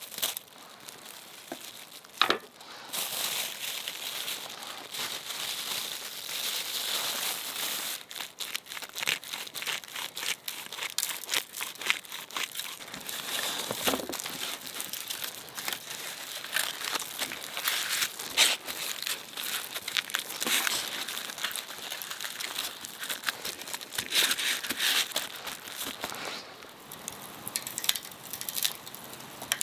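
Dense, continuous crinkling and crumpling full of small clicks, starting about three seconds in and dying away near the end.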